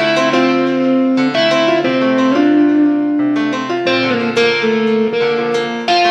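Instrumental background music: a melody of held notes over chords, changing every half second or so.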